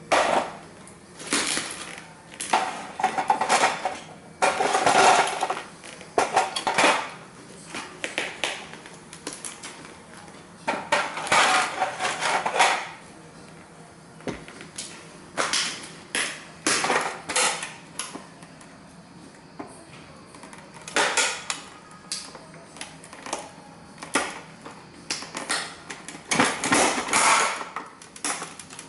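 Cowboy boots stomping on and trampling model train buildings: repeated crunching, cracking and clattering of the broken pieces underfoot, in bursts of several steps with short pauses between them.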